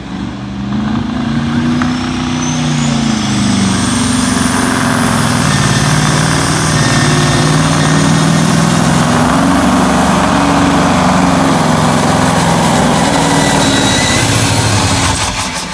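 Semi truck's diesel engine at full load pulling a weight-transfer sled, with a high whine that climbs over the first few seconds. The engine note wavers but holds, then falls off as the pull ends near the end.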